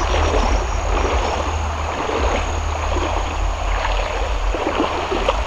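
Shallow river rapids running over stones: a steady watery rush with a constant low rumble underneath.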